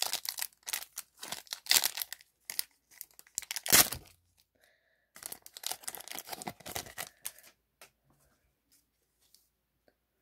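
Foil wrapper of a football trading-card pack being torn open and crinkled: a quick run of sharp rips through the first four seconds, the loudest near four seconds in, then a second spell of rustling crinkle about a second later.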